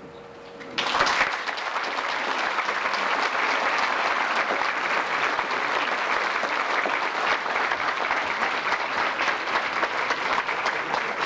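A large seated audience applauding, starting suddenly about a second in and continuing steadily as a dense patter of many hands.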